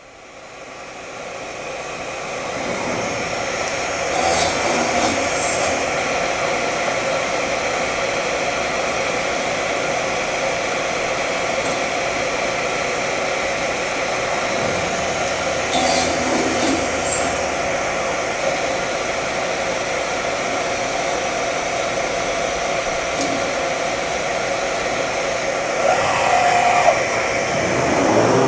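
Tekna TK446 CNC aluminium machining centre running, its spindle whirring steadily as it machines an aluminium profile. The sound builds up over the first couple of seconds, with a few brief sharper noises along the way.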